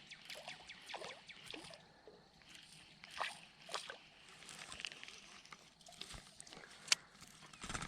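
Topwater popping lure with a rear propeller being worked across the pond surface: faint, irregular pops and sloshes of water, a couple of them louder about three and four seconds in.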